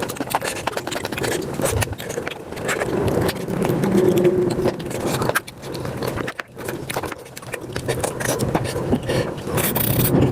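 Eating sounds played back at high speed: chewing, smacking and crunching on mutton nalli marrow bones, run together into a dense stream of rapid clicks and crackles.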